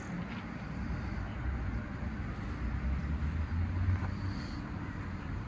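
A car engine running at low speed, a steady low rumble that grows a little louder about halfway through, as a car is manoeuvred slowly.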